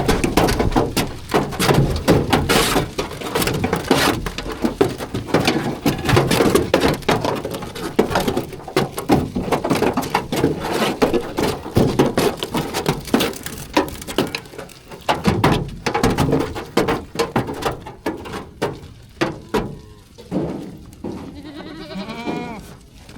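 Sheep moving about with a dense, irregular clatter of small knocks through most of the stretch, thinning out later, and one sheep bleating in a long wavering call near the end.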